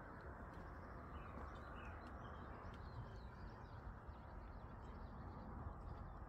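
Small songbirds chirping faintly in quick, scattered notes over a steady low outdoor background hiss.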